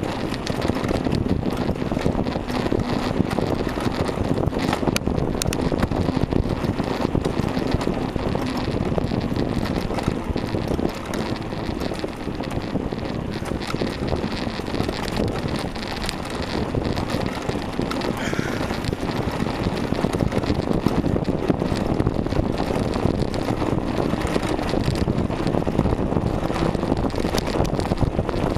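Steady wind noise buffeting the microphone of a bicycle-mounted camera while riding, mixed with road and tyre rumble.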